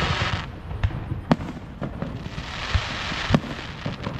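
Fireworks going off: about five sharp bangs at uneven intervals, with stretches of high hissing crackle between them.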